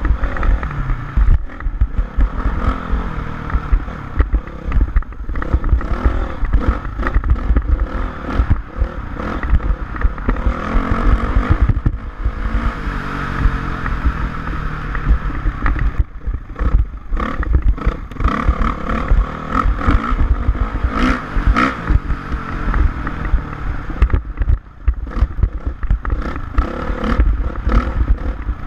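Dirt bike engine running and revving up and down, with clattering knocks and rough low rumble of wind buffeting the microphone.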